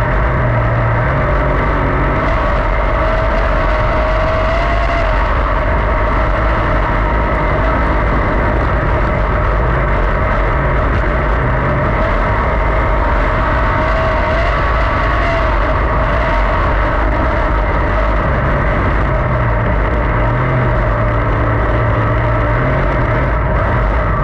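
410 sprint car's V8 engine running hard at racing speed, heard from the cockpit: a loud, steady engine note with only slight wavers.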